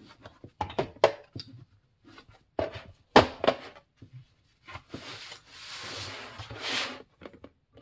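Small metal ratcheting wrenches clicking and clinking as they are slotted into the pockets of a fabric wrench roll, a string of light knocks. About five seconds in comes a couple of seconds of cloth rubbing as the roll is smoothed and handled.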